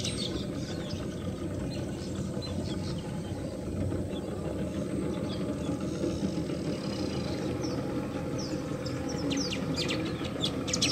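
Small birds chirping and calling, with short high chirps coming thicker in the second half, over the steady low hum of a boat's motor.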